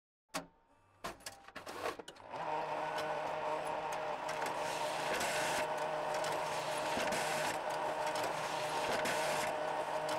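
Photocopier starting up: a few clicks and clunks, then a steady motor whir with a hum. Brief louder hissing passes come about every two seconds as the scan carriage runs.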